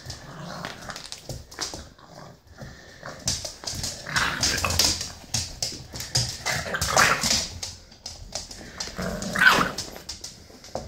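A British bulldog puppy and an older dog play-fighting: bursts of growling and barking, louder from about three seconds in, with short clicks of claws on the laminate floor.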